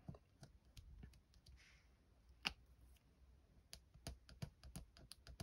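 Near silence broken by a few faint, scattered clicks and light rubbing as a fingertip works over stamped card stock, rubbing and peeling dried masking fluid off the image.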